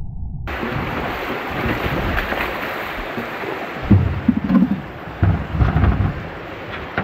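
Fast river water rushing over rocks, with wind buffeting the microphone. Gusty low thumps come in about four to six seconds in.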